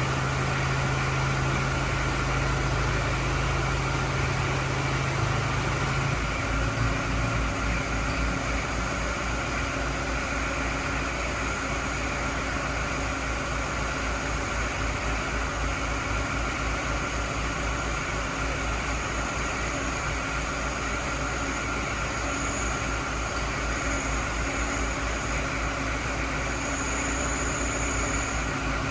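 Vehicle engine idling steadily. A low hum drops away about six seconds in, leaving the engine's low, even pulse and a faint steady high whine.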